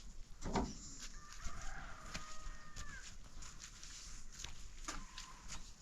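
A rooster crowing once: one long held call that drops in pitch at the end. A sharp knock comes just before it, about half a second in.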